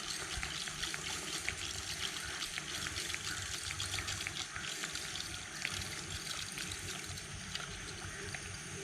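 Stream water trickling steadily, with scattered faint ticks.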